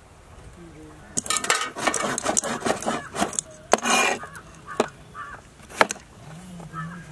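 Knife and tomatoes clattering on a wooden cutting board as tomatoes are handled and cut: a quick run of sharp knocks for about three seconds, then a couple of single knocks.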